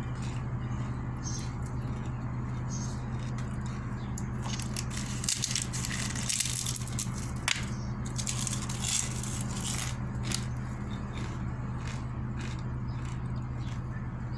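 A person chewing and crunching food close to the microphone, with scattered clicks, and a crunchier stretch from about four to ten seconds in, over a steady low hum.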